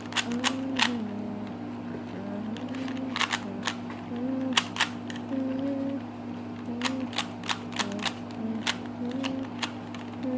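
Rubik's Cube being turned by hand: irregular sharp plastic clicks as the layers are snapped round, some in quick pairs, over a steady low hum and a faint wavering pitched sound.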